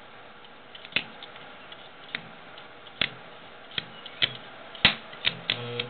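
Stick welding rod being struck against metal to start an arc: irregular sharp clicks and pops, about one a second, with a brief low buzz near the end.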